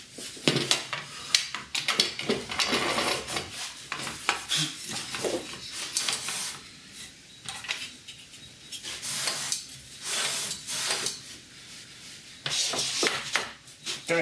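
Metal crosscut fence and mitre gauge of a Festool table saw being handled and fitted: bouts of scraping and sliding with clattering metal clicks as the fence is swung, clamped in place and a plywood piece is pushed against it.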